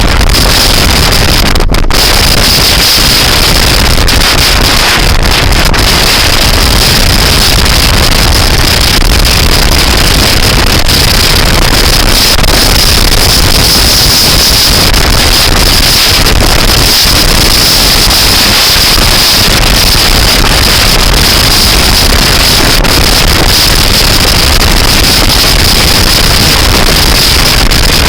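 Loud, steady wind noise buffeting the microphone of a camera on a moving scooter, with the rumble of the ride underneath.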